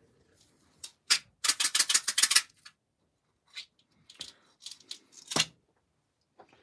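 Wooden toothpicks rattling in a plastic tub as it is picked up, a quick run of about ten clicks a second for about a second. Then a few scattered clicks and a sharp knock as the tub is handled and set down on the cutting mat.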